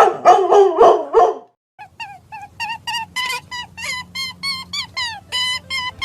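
A dog barking five times in quick succession. About two seconds in, a fast run of short pitched calls follows, about four a second, over a low steady hum.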